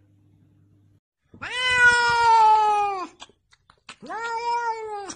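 A cat meowing twice in long, drawn-out meows, the first almost two seconds long and the second about a second, each sagging slightly in pitch at the end.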